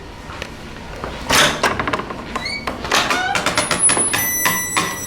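Creaky school door swinging on its Sargent door closer: a run of clicks and knocks, then a high, steady creaking squeal from the door for the last second and a half or so.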